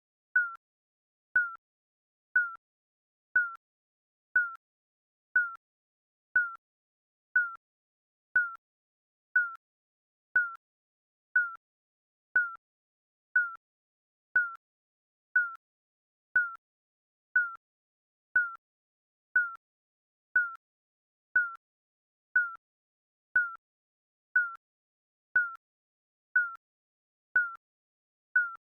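Digital countdown timer beeping once a second: a short, high electronic beep with a slight drop in pitch, repeating evenly.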